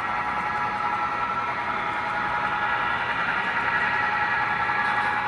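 Model train of eight locomotives and 30 coal cars running along the track: a steady rolling whir of wheels and motors with a high, even hum.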